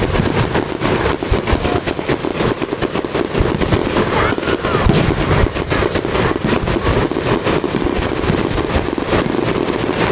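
Dense barrage of aerial firework shells bursting, booms and crackles overlapping several times a second without a break.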